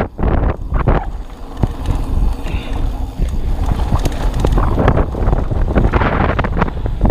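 Wind buffeting the helmet or chest camera's microphone over the rumble of a 2021 Polygon Siskiu T7 mountain bike's tyres and frame on a dirt trail, with quick knocks and rattles over rough ground in the first second.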